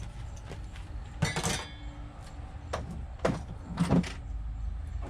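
Hand tools being handled while a set of Allen wrenches is fetched: a short rattling clatter about a second in, then three separate sharp knocks and clinks.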